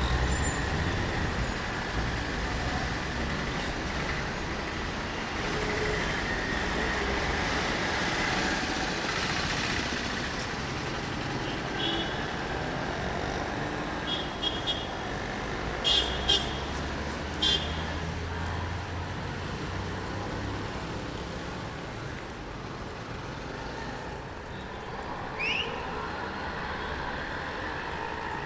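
Road traffic: a steady wash of passing cars and heavier vehicles with a low engine rumble, and a few short, sharp high-pitched sounds in a cluster about halfway through.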